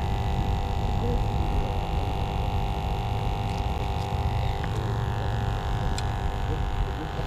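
A steady low hum with wind rumbling on the microphone, and a few faint clicks partway through.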